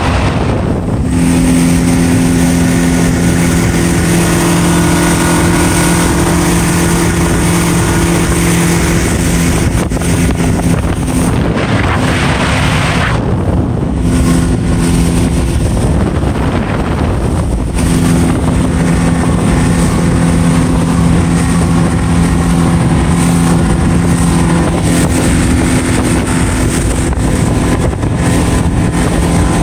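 Robalo R160's outboard motor running with the boat underway: a steady low engine drone under a loud, even rush of wind and water noise.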